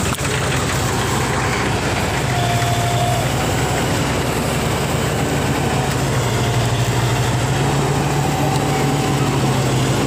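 Crawler bulldozer's diesel engine running steadily as the machine climbs a dirt ramp onto a lowbed truck trailer, with a faint high whine coming and going.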